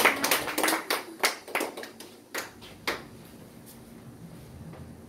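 A small audience applauding briefly, the claps thinning to a few scattered ones that die out about three seconds in.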